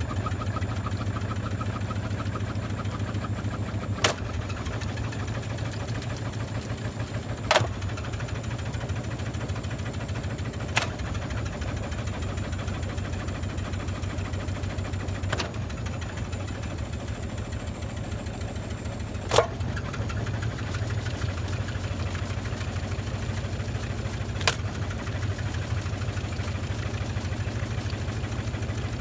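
Washing machine on its spin cycle, running with a steady low hum and a fast, even pulsing from the drum, loaded with wet towels. A sharp knock sounds every few seconds, six in all, the loudest a little past the middle.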